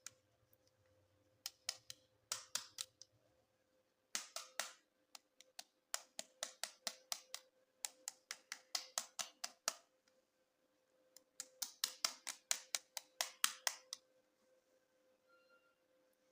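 Bursts of rapid, sharp plastic clicks and snaps, about four or five a second, from plastic toy parts and packaging being handled. A faint steady hum runs underneath.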